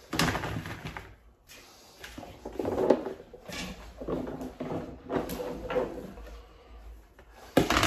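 Irregular knocks, thuds and scrapes of kitchen utensils and containers against a cooking pot as chopped vegetables are put in on top of the rice. The sharpest knock comes near the end.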